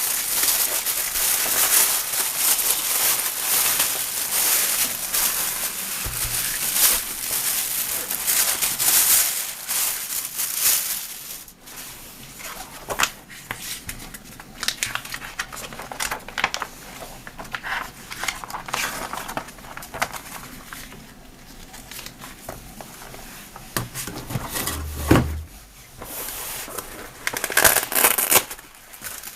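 Packaging crinkling and rustling as it is unwrapped and handled. It is dense and continuous for roughly the first third, then turns to scattered crinkles and clicks, with a louder flurry of crinkling near the end.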